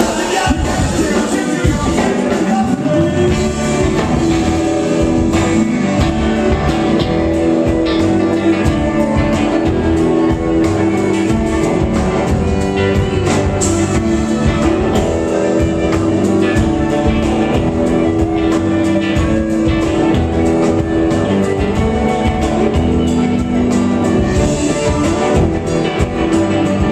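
Live band playing: electric guitars, bass guitar and saxophone over a steady beat.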